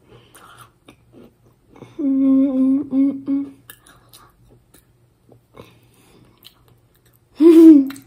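A girl hums a held, level 'mmm' with her mouth closed for about a second and a half, and a shorter 'mm' that rises and falls near the end. Faint chewing and mouth clicks come in between.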